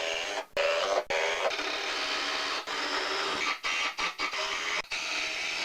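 Power drill running in short bursts, stopping and restarting several times, as it pre-drills and drives 3-inch deck screws into 2x4 lumber.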